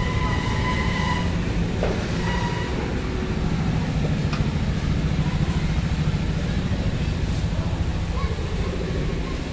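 Diesel truck engine idling, a steady low rumble with an even pulse.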